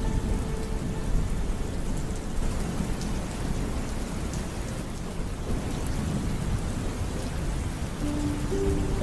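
Steady heavy rain with rolling thunder rumbling low underneath. A held music note fades out about a second in, and soft notes of a melody come in near the end.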